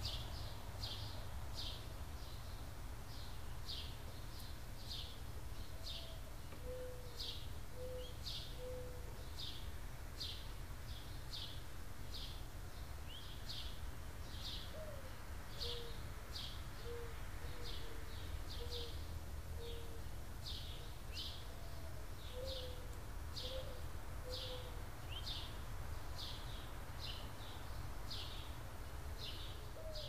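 Mourning dove cooing three times, each phrase a higher first coo followed by several lower coos. Under it, a small songbird gives a steady series of short, high, falling chirps, about one and a half a second. A low background rumble runs beneath.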